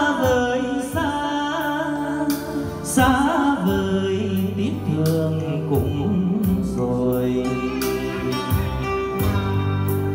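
A slow ballad playing over loudspeakers, with a wavering melody line over a regular drum beat, sent through a Behringer Xenyx QX1222USB mixer as a listening test.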